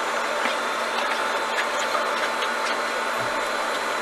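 Steady hum and rushing air noise of air-handling machinery, with a few faint clicks as a backpack is handled.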